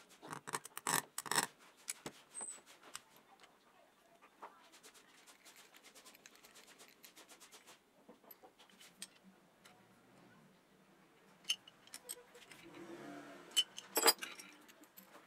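Sharp clicks and light metal knocks from a cordless drill's gearbox and clutch housing being handled and turned by hand: a quick run of loud clicks at the start, faint ticks in between, and another cluster of loud clicks near the end.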